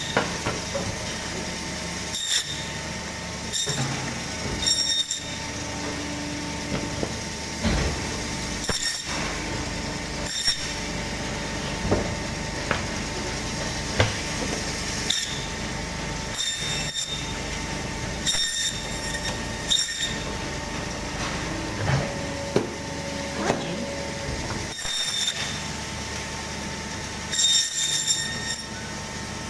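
Butcher's meat bandsaw running with a steady hum while the blade cuts through a goat carcass, with short, loud, ringing bursts every second or two as each piece is pushed through.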